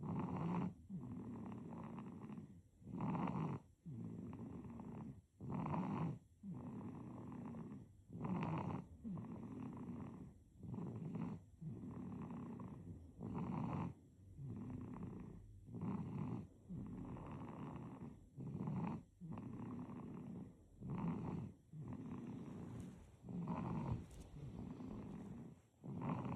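A baby snoring, about one breath every two and a half seconds. Each breath is a short, louder rasping snore followed by a longer, softer one.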